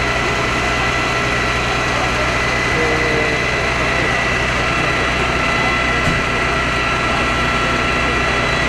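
Fire engine's engine running steadily at the scene with its hoses laid out, a constant low hum with a steady high whine on top.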